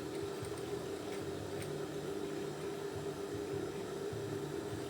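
Steady hum of an electric sewing machine motor running, with a faint uneven low rumble underneath.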